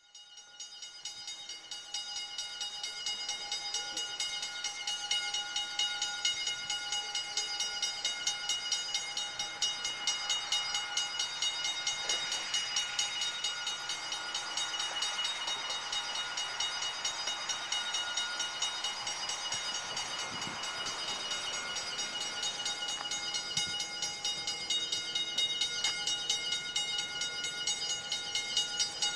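Freight train approaching behind EMD SD40-3 and SD45 diesel locomotives, running under a steady ringing that pulses several times a second throughout. The running noise swells for a stretch about halfway through.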